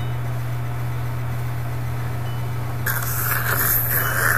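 A steady low hum on the webcam recording. About three seconds in it is joined by a louder rustling scrape as someone leans in close against the microphone.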